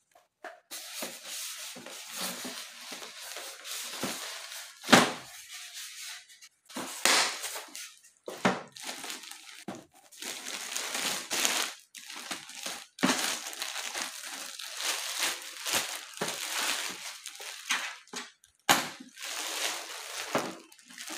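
Plastic wrapping bag rustling and crinkling as it is worked off a small laser printer, with polystyrene foam packing pieces rubbing and being lifted away. A sharp thump stands out about five seconds in, and another comes near the end.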